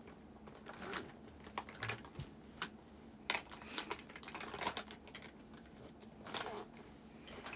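Irregular light taps and clicks with a few short rustles: hands handling small things close to the microphone.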